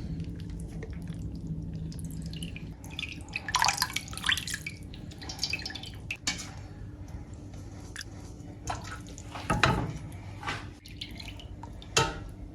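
Water dripping and splashing as soaked whole chickens are lifted from their salted soaking water into a pan, with a few knocks along the way.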